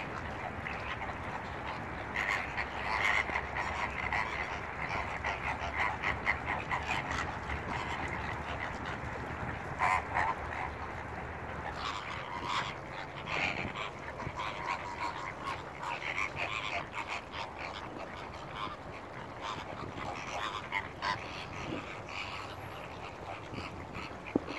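A large flock of greater flamingos honking and chattering, many birds calling at once, with louder single calls standing out now and then.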